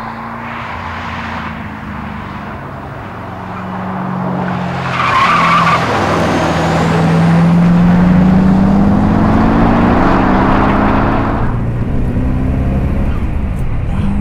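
Callaway Twin Turbo C4 Corvette's turbocharged V8 heard from outside the car as it drives through a bend and accelerates away. There is a short tyre squeal about five seconds in, then the engine note rises for several seconds and eases off.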